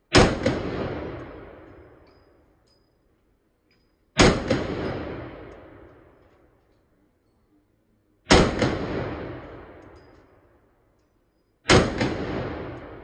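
Four semi-automatic pistol shots played back slowed down, each a sharp crack that fades out slowly over two or three seconds. The shots come about four seconds apart.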